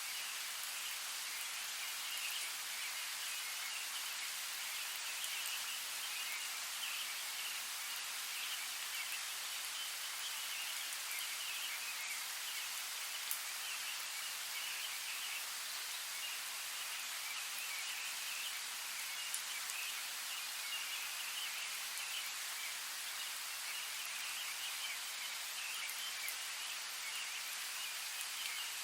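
Steady rainfall in a forest: an even hiss of falling rain, with a couple of single louder drops standing out.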